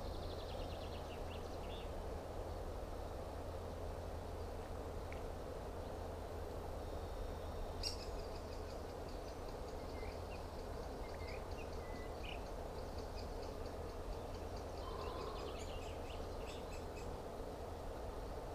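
Quiet outdoor ambience: a steady low hiss with faint, scattered bird chirps, and one small click about eight seconds in.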